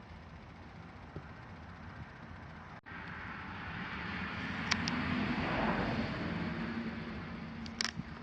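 A distant engine passing by, swelling to a peak mid-way and fading again over a steady low hum, with a few sharp clicks about halfway through and near the end.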